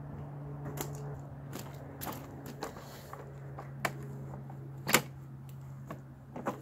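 Folding plastic sawhorses being unfolded and set down on gravel: a string of sharp clicks and knocks, the loudest about five seconds in, over a steady low hum.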